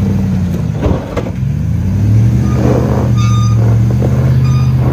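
Off-road 4x4's engine revving under load as it crawls over rocks, easing off briefly about a second in with a couple of knocks, then climbing and held at higher revs.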